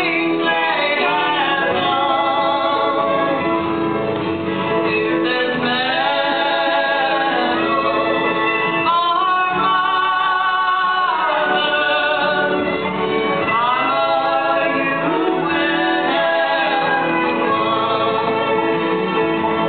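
Live bluegrass band playing and singing: a lead voice with vibrato over guitar, with a steady held note underneath.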